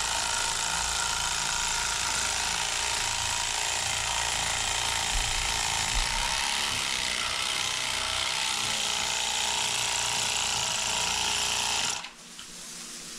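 Electric fillet knife running steadily as its serrated blades cut along a striped bass; the motor stops near the end.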